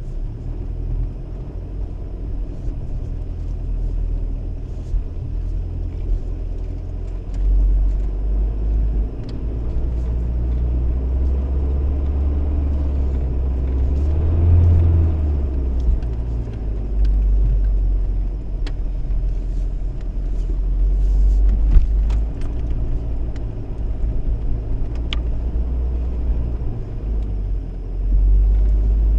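The 2.5 turbo diesel engine of a 1997 Jeep Cherokee XJ, heard from inside the cab as it is driven off-road through mud: a steady low rumble whose note rises and falls about halfway through. Scattered clicks and knocks come through over it, with one sharp knock about three-quarters of the way in.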